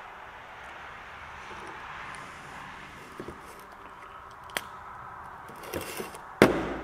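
A few light metal clicks as a brake caliper bracket is handled on a steel workbench, then one loud clunk near the end as the bracket is set down on the bench.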